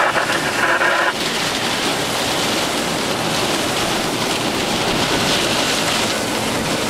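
Heavy wind-driven rain of a supercell thunderstorm, a steady hiss. Over it a tinny, narrow-band radio voice cuts off about a second in.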